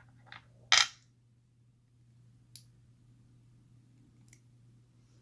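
Small metal parts clicking as a padlock core's pins and springs are taken out and handled, with one louder clatter about a second in and a few faint single clicks after. A steady low hum underneath.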